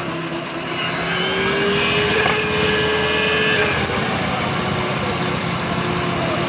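A motor running steadily, its pitch rising slightly about a second in.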